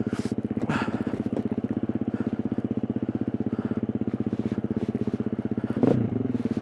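2020 KTM 350 EXC-F's single-cylinder four-stroke engine running at low, steady revs, with a fast, even chug as the dirt bike creeps along.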